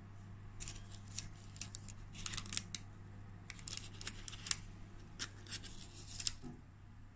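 Freshly baked scone being broken open by hand on a paper-lined baking tray: its crisp crust crackles in several short clusters of dry crackling.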